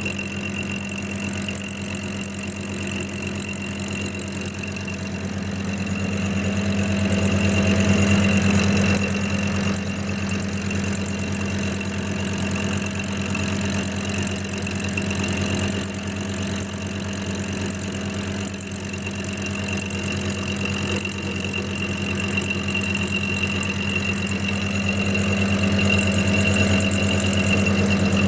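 Clarke CL430 metal lathe running steadily at medium speed, driving a dovetail cutter on a vertical milling slide through a slow cut in a mild steel block. A steady low machine hum with a thin high whine over it.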